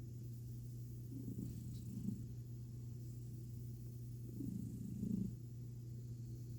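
American Ringtail cat purring while having its belly rubbed, a steady low rumble that swells louder a few times.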